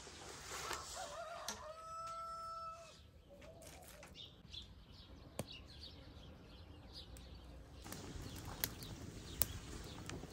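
A rooster crows once, the call wavering at first and then held on one note before it stops about three seconds in. After it comes quieter background with a few sharp clicks.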